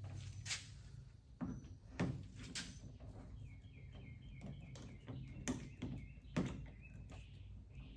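Several sharp clicks and knocks of hand-tool work on the roof top tent's shell while it is being riveted back onto its aluminium frame, over a low steady hum. A run of faint, quick, high chirps comes through in the middle.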